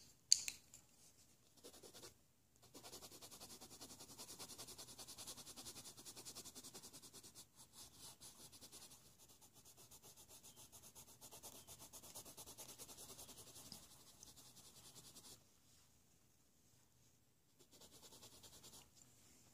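Faber-Castell Polychromo coloured pencil scratching rapidly back and forth over textured colouring-book paper. It stops about fifteen seconds in and comes back briefly near the end, with a sharp tap just at the start.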